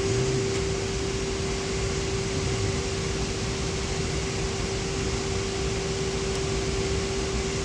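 Steady machine-shop background hum: an even rush of air noise with a constant mid-pitched tone.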